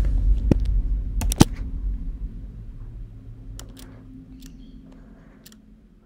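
A few sharp clicks from a computer mouse and keyboard, the loudest about one and a half seconds in, over a low steady hum that fades away.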